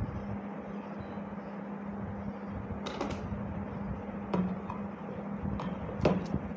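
A few sharp clicks and knocks of objects being handled, starting about three seconds in, the loudest near the end, over a steady low hum.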